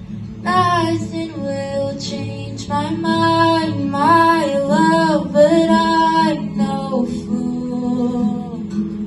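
A young woman singing over acoustic guitar; the sung lines begin about half a second in.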